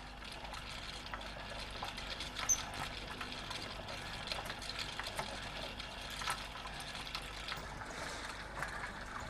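Cyclist automaton's mechanism running: light, irregular clicks and rattles of its moving parts over a steady hiss.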